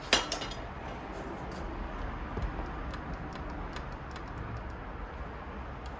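A sharp clack just after the start, then scattered light ticks and clicks of small hardware being handled while a computer is taken apart.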